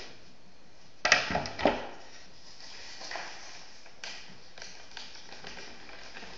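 Handmade cardboard model rifle being handled: a quick group of three knocks about a second in, then scattered faint taps of cardboard parts against each other and the table, over a steady hiss.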